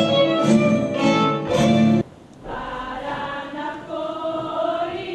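Greek folk dance music played on strings, violin and plucked instruments, cuts off abruptly about two seconds in. It gives way to a group singing a folk song, quieter and with little or no accompaniment.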